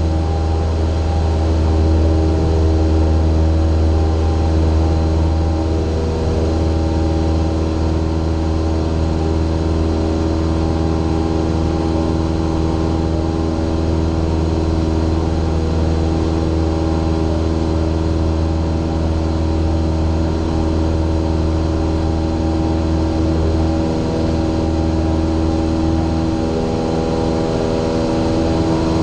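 Light single-engine airplane's piston engine and two-blade propeller running steadily at reduced approach power, a low, even drone heard from close behind the propeller with air noise. The low drone eases slightly near the end.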